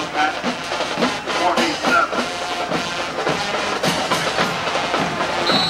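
Marching band drums beating a steady rhythm, with crowd voices mixed in.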